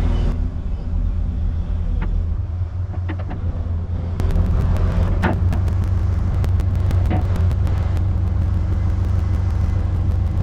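Komatsu PC220 excavator's diesel engine running with a steady low rumble, getting louder about four seconds in as it works, with a few sharp knocks and clicks along the way.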